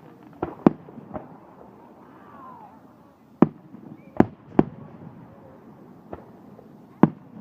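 Fireworks going off: about eight sharp bangs at uneven intervals, some in quick pairs, with the loudest a little under a second in, about three and a half seconds in, and near the end.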